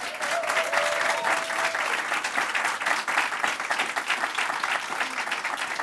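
Audience applauding, a dense steady clapping that breaks out at once, just after the line about graduating.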